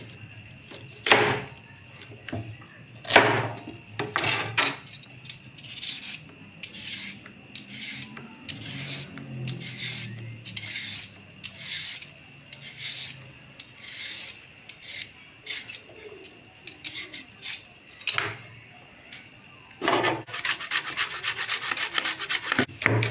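Kitchen knife cutting celery and carrot on a cutting board: separate slicing strokes about once a second, then a fast run of rapid chopping near the end.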